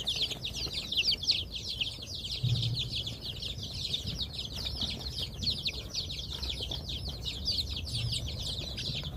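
A brood of chicks peeping without pause: many short, high, falling peeps overlapping in a dense chorus.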